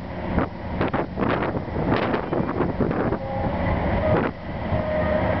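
Diesel locomotive's engine running steadily below, a deep even rumble, with wind gusting over the microphone.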